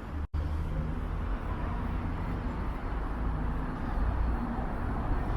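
Steady city street traffic: a low rumble of car and vehicle engines and tyres, with the sound cutting out for an instant just after the start.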